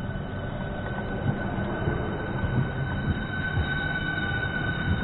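Southeastern Class 395 'Javelin' high-speed electric multiple unit moving past along the platform. A steady high-pitched whine grows louder over a low rumble of wheels, with irregular low thuds.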